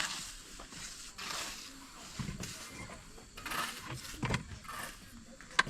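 Intermittent scraping and knocking of manual building work, with a few dull thuds and a sharp click near the end.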